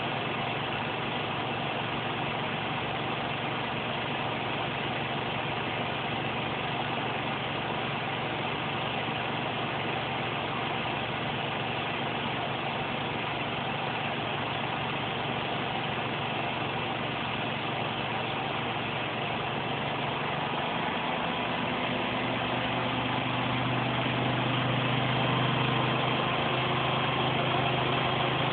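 Zanker Profimat PF6650 washing machine in its final spin cycle, running at up to 1600 rpm with a steady, whirring motor-and-drum hum. It gets a little louder and a low hum strengthens over the last several seconds.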